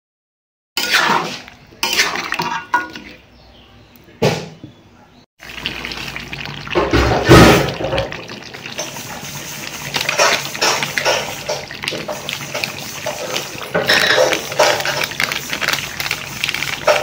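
Chicken curry simmering and bubbling in a metal kadai, with a spatula scraping and stirring against the pan in the first few seconds and a loud handling knock about seven seconds in.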